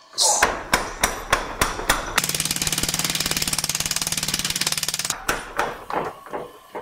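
Beaudry Peerless mechanical power hammer running, its top die striking a wooden board on the anvil block: a few separate blows speed up into a rapid, steady run for about three seconds, then the blows slow and die away as the hammer is stopped. The die now comes down low and hard enough to hit a 1-inch board, splintering the wood.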